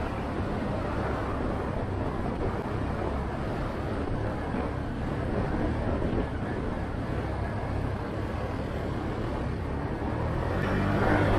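ATV engine running as the quad rides along an off-road trail, a steady drone that grows louder near the end.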